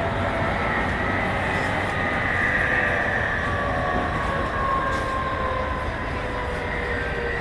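Y500 series electric train running, heard from inside the car: a steady rumble of wheels on rail with the traction motors' whine, its several tones sliding slowly down in pitch.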